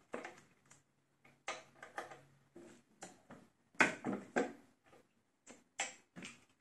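A slug mold being worked by hand: an irregular string of clicks and knocks, the loudest about four seconds in.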